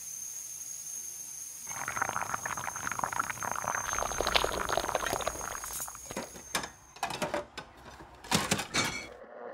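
Drip coffee maker brewing: a steady high whine, then from about two seconds in a crackling, gurgling stream of coffee pouring into the carafe. Near the end it breaks into a handful of sharp clicks and knocks.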